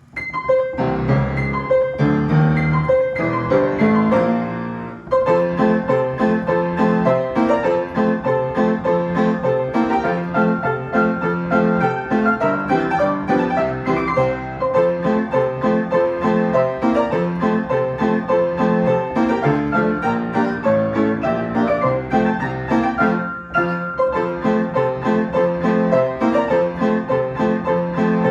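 A piano playing a tune, with a melody over a steadily repeating pattern of bass chords. It starts abruptly at the beginning and pauses briefly twice.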